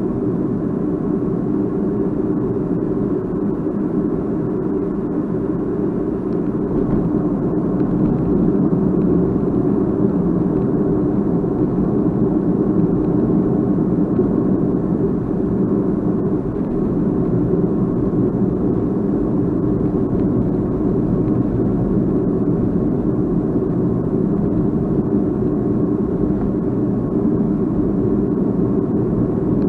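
Steady rumble of a vehicle in motion, picked up by a Crosstour CT8500 action camera's microphone. There is no whine or buzz from the camera itself: this unit is free of the camera's known abnormal noise.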